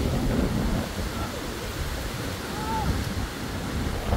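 Strong hurricane wind blowing in gusts, buffeting the phone's microphone. A couple of faint, short, high squeaks sound in the middle.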